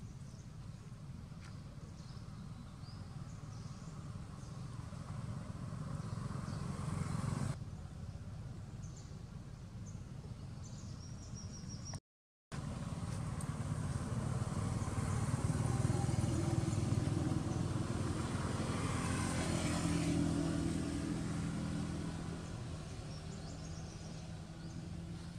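Low rumble of passing motor traffic, swelling over several seconds and dropping away. After a brief silent gap about halfway, a second, louder swell rises and slowly fades, with a steady engine hum showing in it.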